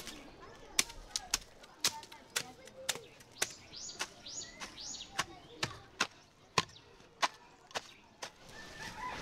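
Hand hoe chopping into dry, clumpy garden soil: sharp thuds of the blade striking the ground, about two a second.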